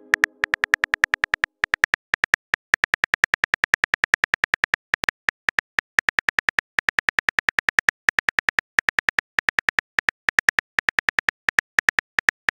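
Phone keyboard key-click sound effect, one click per typed letter, in a rapid steady run of about six clicks a second with a few short pauses.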